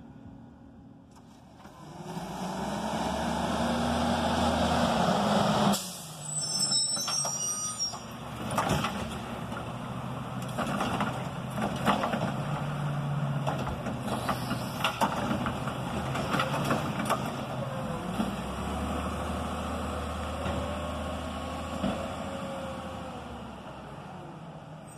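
Crane Carrier (CCC) garbage truck's diesel engine revving up, cutting off suddenly about six seconds in; then another CCC garbage truck running farther along the street, its engine rising and falling, with many knocks and clanks. High chirps come about six to eight seconds in and again near the end.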